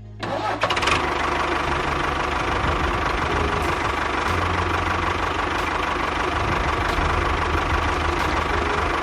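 A small motor or engine running steadily at a constant speed, starting abruptly just after the beginning.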